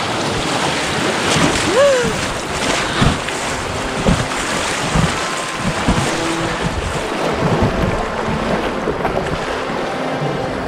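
River water rushing and splashing against the bow of an inflatable kayak running a small rapid, with wind buffeting the microphone and several low thumps as waves slap the hull. A brief rising-then-falling tone sounds about two seconds in.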